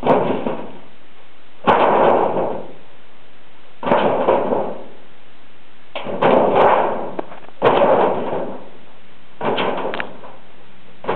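Thin metal sheet banging and rattling as a dog steps and paws at it, about six clanks a couple of seconds apart, each a sharp hit followed by a short rattle.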